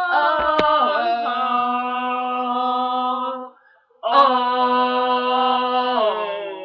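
Two women singing two long held notes together, with a short break about three and a half seconds in; the first note slides down in pitch before settling.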